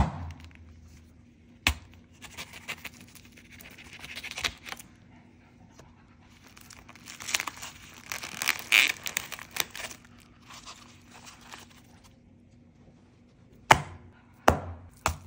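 Plastic film over a foam tray of ground beef being torn open and peeled back, crinkling and rustling. A few sharp knocks: one early and three close together near the end.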